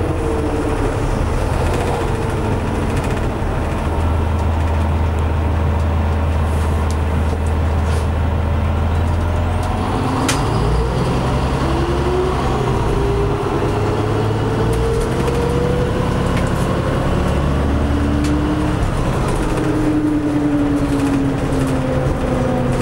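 Inside a New Flyer DE60LF hybrid articulated bus: the Caterpillar C-9 diesel's steady low drone with the GM-Allison EP50 hybrid drive's whine gliding down in pitch, then rising again after a sharp click about ten seconds in.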